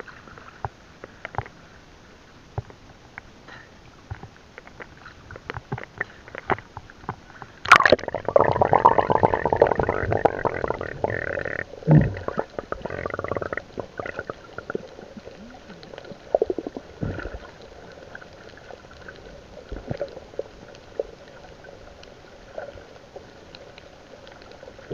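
Camera in a waterproof housing at the sea surface with scattered sharp clicks of water against it, then plunging under: about eight seconds in a sudden loud rush of bubbles and churning water lasts about four seconds. After that, muffled underwater sound with scattered clicks and a knock.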